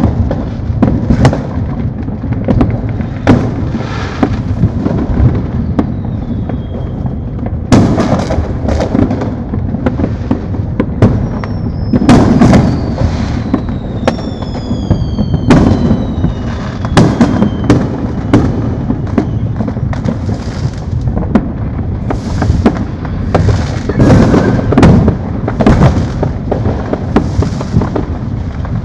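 Many fireworks going off at once across a neighbourhood: a constant rumble of distant booms and pops with frequent sharp nearby bangs. Several whistles fall in pitch about halfway through.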